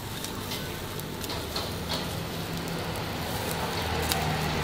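Charcoal grill crackling and sizzling under salt-crusted whole fish, with a few sharp clicks of metal tongs on the fish and grill grate, over a steady low hum.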